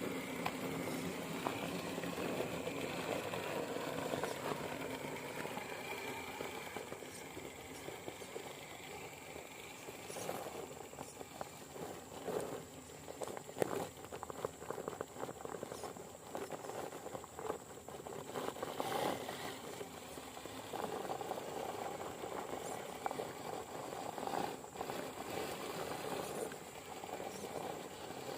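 Radio-controlled scale truck driving through mud, its motor whining and changing pitch with the throttle. Knocks and rattles come through from about ten seconds in.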